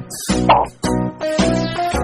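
Background music: a tune of short, evenly spaced notes, with a brief swoosh about half a second in.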